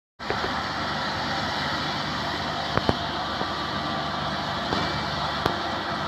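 Crown MCH 2000 combine harvester's diesel engine running steadily, with a couple of sharp knocks about three seconds in and another near the end.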